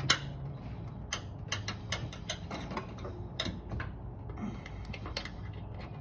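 Irregular metallic clicks of a quarter-inch wrench working on the corner bolt that secures a top-load washing machine's loose top, over a steady low hum.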